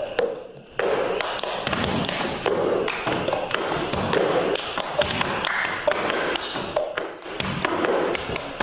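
Many quick, irregular taps and clicks.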